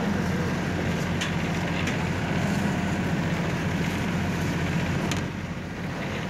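Boat engine running with a steady low rumble, with a few sharp clicks; the rumble drops in level about five seconds in.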